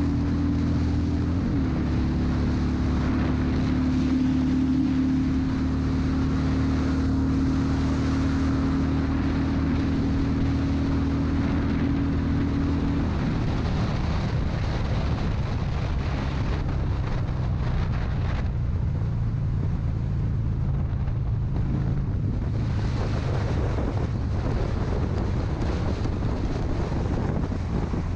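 Cruiser motorcycle engine running at highway speed, with wind rushing over the microphone. The engine note drops lower about halfway through.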